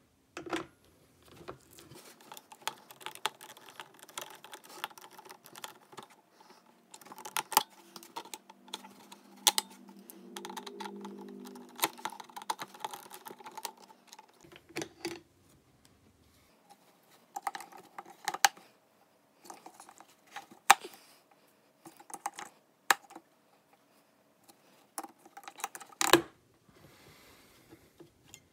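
AA batteries being loaded into an animatronic doll's plastic battery pack: irregular sharp clicks and taps of the cells against the plastic, with light handling noise in between. The sharpest click comes a couple of seconds before the end.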